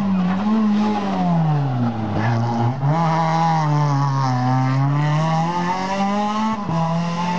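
Renault Twingo rally car's engine through a tight hairpin: the revs fall as it slows into the turn, then climb in steps as it accelerates away, with a brief dip around the middle.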